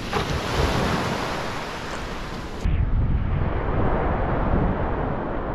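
Surf washing on the beach with wind buffeting the microphone. About two and a half seconds in the sound changes abruptly to a heavier, lower wind rumble on the microphone.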